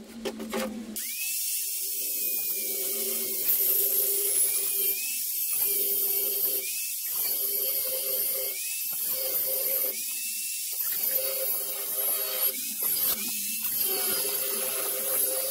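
Angle grinder with a thin cut-off disc cutting a slot along a square steel tube: a steady motor whine under a harsh high grinding hiss, coming in about a second in. Every second or two the cutting noise briefly drops away and the whine swoops back up as the disc is worked along the cut.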